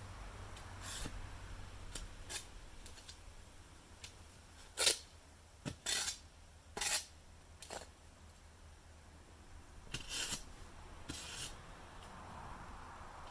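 Irregular light clinks and scrapes of small hard objects being handled, with a cluster of sharper clinks around the middle and a few more near the end.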